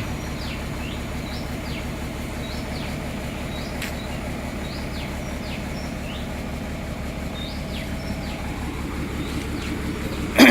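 Excavator's diesel engine running steadily with an even low throb, while a bird chirps repeatedly, about once a second. A loud sound with a falling pitch comes right at the end.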